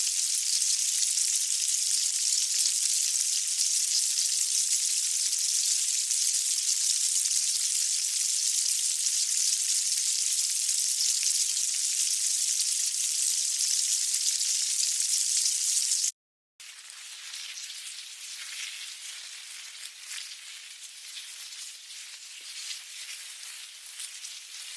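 Ant colony: a dense, steady high-pitched crackling hiss that cuts out briefly about two-thirds of the way in, then resumes as a quieter, sparser crackle.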